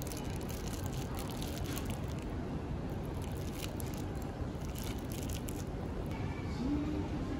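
Steady low background noise of a street-food stall area, with light crackling rustles through most of it and a brief voice near the end.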